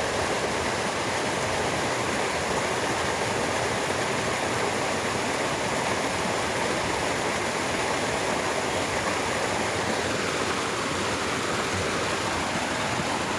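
Water rushing steadily along a ditch, an even unbroken noise.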